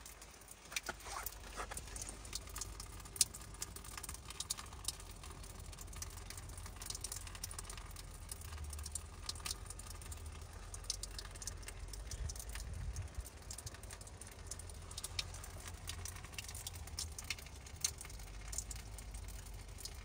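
A thin stream of cold spring water from a fountain spout trickling and splashing onto ice, a light, irregular patter of drops over a low rumble.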